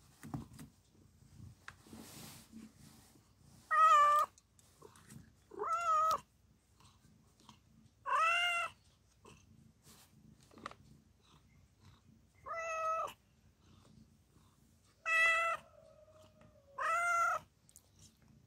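Calico mother cat in labor meowing repeatedly: six separate calls about two seconds apart, each rising and falling in pitch.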